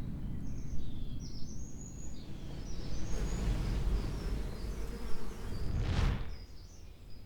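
Wind buffeting the microphone with a steady low rumble while small birds chirp in the background. A brief whoosh swells and fades about six seconds in, after which the wind noise drops.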